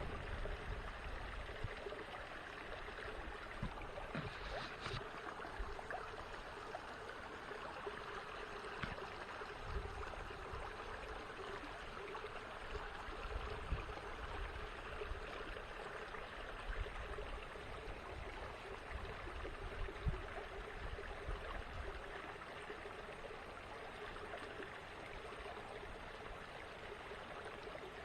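Small creek running over shallows: a steady rushing and trickling of water. Irregular low rumbles on the microphone come and go through the first two thirds.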